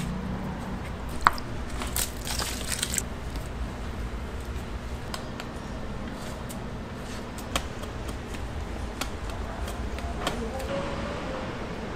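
Wire whisk stirring thick pancake batter in a large stainless steel bowl, with irregular metallic clicks as it knocks the bowl, the sharpest a little over a second in and a quick run of them about two seconds in. A steady low hum runs underneath.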